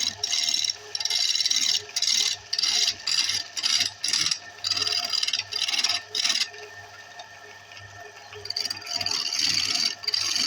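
Wood lathe motor running with a steady hum while something is pressed against the spinning wood in short scraping passes, about one a second. The scraping stops about two-thirds of the way through, leaving the motor hum, and comes back more faintly near the end.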